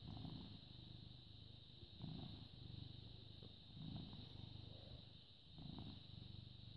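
British Shorthair cat purring faintly as it is stroked on the head. The low rumble swells and fades with each breath, about every two seconds.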